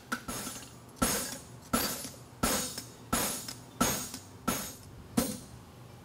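Farrier's hammer striking a hand-held tool worked along a steel draft horseshoe on the anvil: seven ringing metallic blows, evenly spaced about two-thirds of a second apart.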